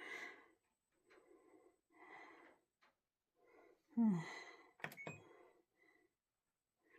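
Washing machine starting its cycle: short faint swishing noises come about once a second. A sharp click comes just before five seconds in, and a brief gasp-like breath about four seconds in.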